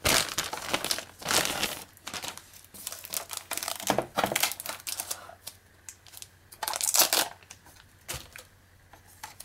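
Thin clear plastic bag crinkling in irregular bursts as the wireless router wrapped in it is handled. The crinkling dies down near the end.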